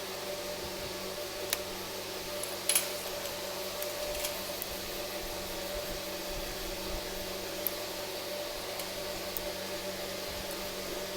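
Steady machine hum, like a fan, with a few small sharp clicks and taps: one about a second and a half in, a quick double tap just before three seconds, and another near eight seconds.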